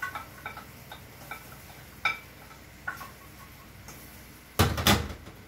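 Wooden spatula tapping and scraping chopped garlic off a ceramic plate into a pan, a string of light taps about every half second. Near the end comes a louder clatter of dishes.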